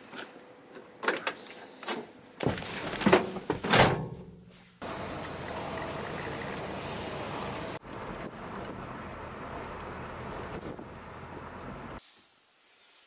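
Old pickup truck's door handled and shut with a few clicks and knocks, then the truck's engine and road noise running steadily inside the cab, cutting off abruptly about twelve seconds in.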